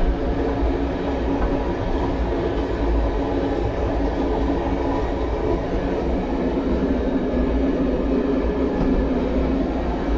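Old MÁV passenger carriage rolling along the track: a steady, even rumble of wheels and running gear, heard from inside its toilet compartment.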